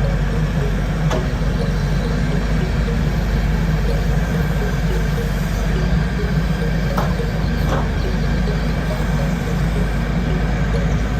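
Diesel engine of a forestry harvesting machine running steadily at a low, even pitch, with a few short knocks about a second in and twice near seven seconds.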